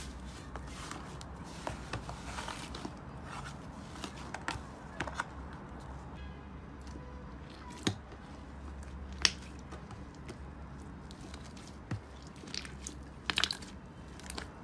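Hands squeezing and kneading slime: soft crackling and squishing with scattered short clicks, and a few sharper, louder pops in the second half.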